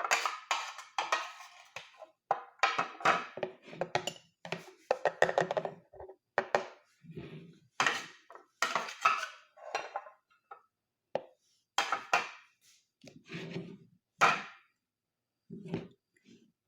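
Dishes and kitchen utensils clattering in a string of irregular knocks, clinks and scrapes, as ingredients are handled and put into a container. The handling grows sparser near the end.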